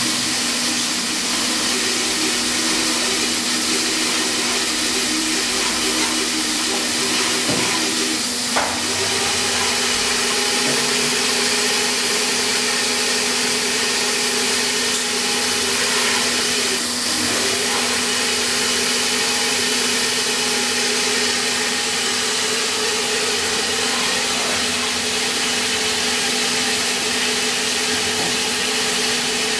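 Rambo 5V CNC vertical milling machine running under power: a steady hum with a hissing whir, and a brief knock about eight seconds in.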